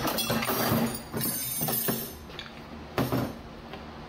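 Metal TH350 transmission parts (clutch drums, steel and friction discs) clinking and clattering as they are handled and set down on a steel parts cart, with a sharp metal knock about three seconds in.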